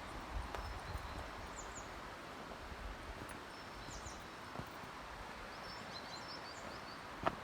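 Small birds chirping in short calls several times over a steady outdoor background hiss, with a few soft footfalls and one sharp click near the end.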